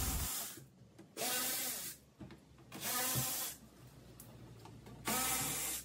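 Milwaukee M12 FUEL cordless ratchet running in three short bursts of under a second each, its motor whine rising as it spins up, zipping out undershield screws.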